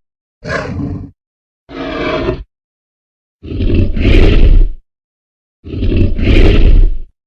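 Tyrannosaurus rex roar and growl sound effects: four separate calls, each cut off into silence. Two shorter, quieter ones come in the first half, then two long, loud roars.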